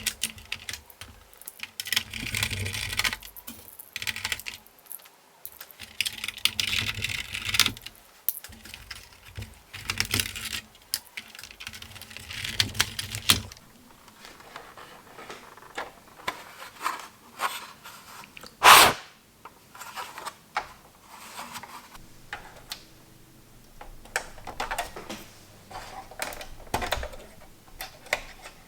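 Hands working on a PS3 Slim console's plastic casing and parts: irregular clicks, taps, rattles and short scrapes of parts and tools being handled, with one louder knock about two-thirds of the way through.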